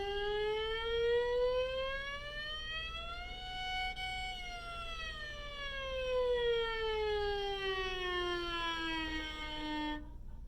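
Violin playing a slow 'ghost noise': one bowed note on the D string, pressed down firmly, glides smoothly up in pitch for about four seconds, then slides back down, cutting off just before the end, like a siren.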